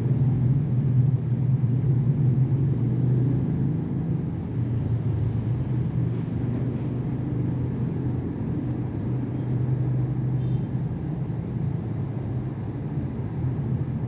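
Panasonic F-EY1511 ceiling fan running steadily at speed: a constant low motor hum with the rush of air from its turning blades.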